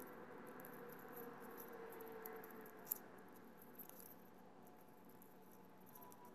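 Faint rustling and crinkling of origami paper being folded and creased by hand, with one sharper crisp click about three seconds in.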